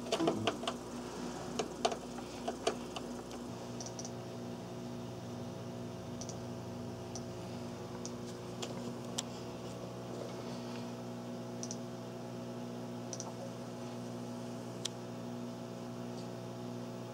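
Scattered sharp clicks from handling cables and a computer mouse, over a steady low electrical hum whose deepest part drops out a few seconds in.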